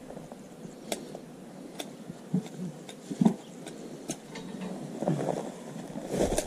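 Steel hand shears working through a sheep's fleece: a few sharp clicks about a second apart, with soft knocks between them.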